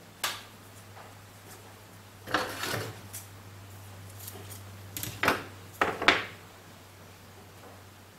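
Hands working a roll of woven fiberglass masking tape and scissors on a wooden workbench. There is a sharp knock at the start, a short scraping rustle a little over two seconds in, and a cluster of sharp clicks and snips around five to six seconds in.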